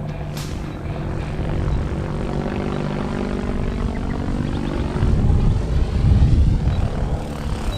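Electric radio-controlled helicopter flying, its motor and rotor giving a steady hum with a pitch that sweeps as it moves around. About five seconds in, the hum fades under a louder low rumble.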